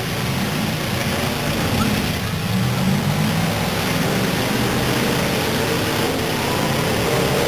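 The engines of several demolition derby cars running and revving together in a steady, loud din.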